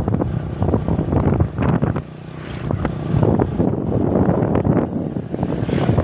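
Wind buffeting the microphone on a moving motorbike, with the bike's running and road noise underneath; the rush dips briefly about two seconds in.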